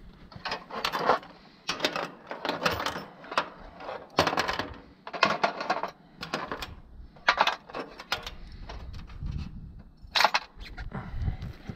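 Metal parts and tools being handled: irregular clinks, rattles and scrapes, with a few dull thumps near the end.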